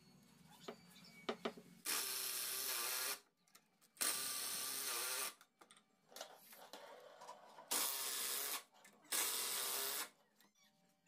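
Makita DTD150 cordless impact driver running in four short bursts of about a second each, driving screws into plywood, with small handling clicks between runs.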